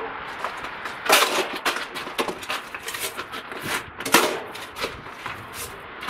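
Metal snow shovel scraping and pushing snow along a concrete sidewalk in short, sudden strokes. The two loudest scrapes come about a second in and about four seconds in, with lighter scrapes between.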